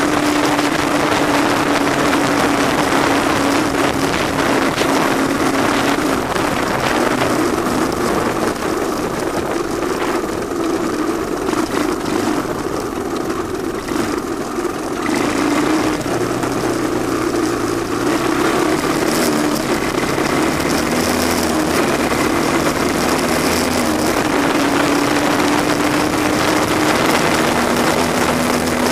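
Honda ATC185S three-wheeler's single-cylinder four-stroke engine running as it rides along a dirt trail, its pitch rising and falling with the throttle. It eases off for a few seconds about halfway, then picks up again.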